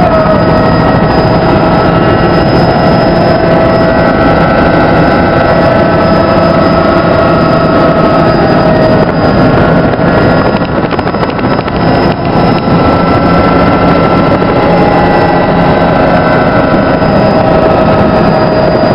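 Helicopter engine and rotor noise heard from inside the cabin in flight: a loud, steady drone with several high steady whining tones over it, easing slightly for a moment about ten seconds in.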